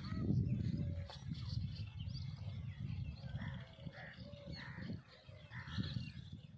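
Wind rumbling on the phone's microphone, with short animal calls repeating about once a second in the background.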